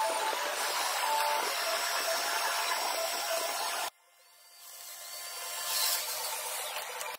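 Steady workshop noise that cuts off abruptly about four seconds in. Then a handheld plunge joiner on a dust-extraction hose starts up against a wooden table leg, growing louder and loudest about six seconds in as it cuts.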